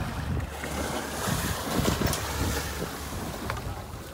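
Wind buffeting the microphone on an open boat at sea, with a stronger gust in the middle.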